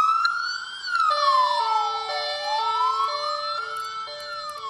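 Emergency-vehicle siren sound effect, standing for the fire engines. A wailing tone rises and falls in slow sweeps, and from about a second in it is joined by a two-tone hi-lo siren switching pitch about every half second.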